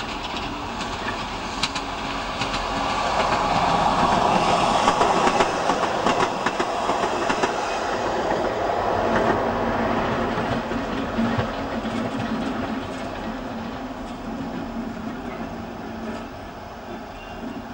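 A train of diesel locomotives, a Class 47 and a Class 33 hauling five Class 47s, pulling out through the yard: engines running and wheels clicking over rail joints. It is loudest about four to six seconds in, then fades as it moves away.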